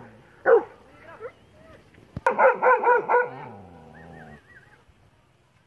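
A dog barking: one bark about half a second in, then a quick run of about four barks a little after two seconds.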